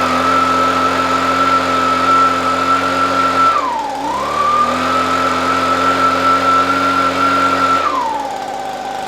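Echo PB265L backpack blower's two-stroke engine and fan running at high throttle. The revs dip briefly about four seconds in, climb back, then drop to idle near the end. Just tuned up with a new spark plug, fuel filter and air filter, the engine runs well: "that's nice."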